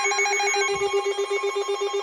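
An electronic alarm tone pulsing rapidly, about ten times a second, with steady higher tones sounding over it.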